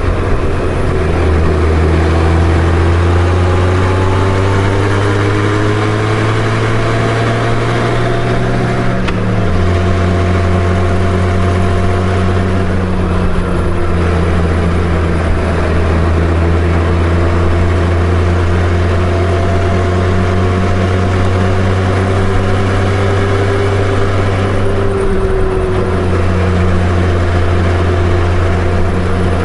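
Honda Gold Wing GL1500 flat-six motorcycle engine running on the road, rising in pitch as the bike speeds up over the first several seconds, changing note sharply about nine seconds in, then cruising steadily.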